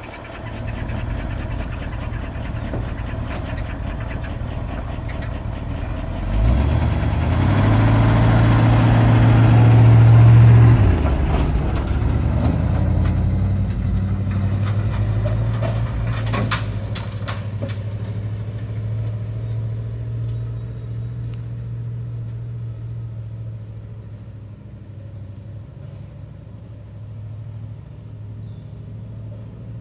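Old 1973 International pickup truck engine running, then revving up about six seconds in as the truck pulls away, its steady engine note fading slowly as it drives off. A few sharp knocks come about sixteen seconds in.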